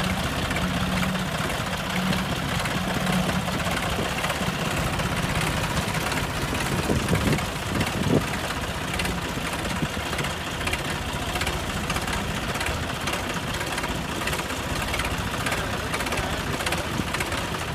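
Tractor diesel engines of a John Deere 5050D and a Sonalika running hard under full load as they pull against each other, a steady rumble throughout. A couple of brief low thuds come about seven and eight seconds in.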